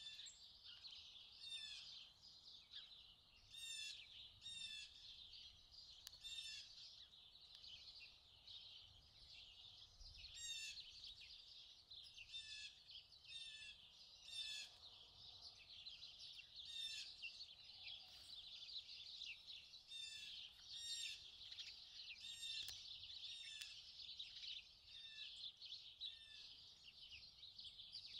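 Faint songbird calls: short high calls repeated about every second or so, over a steady high twittering of several birds.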